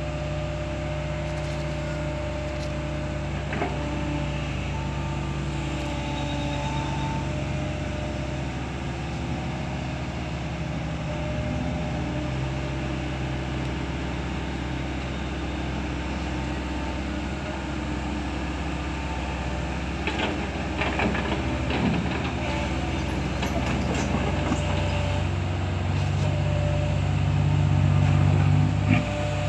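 Small Kobelco hydraulic excavator's diesel engine running steadily as it digs, with a cluster of clanks and rattles about two-thirds of the way through. A deeper engine note grows louder near the end.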